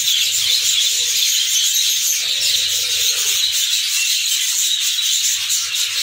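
A large flock of budgerigars chattering together: a dense, steady chorus of high chirps and warbles.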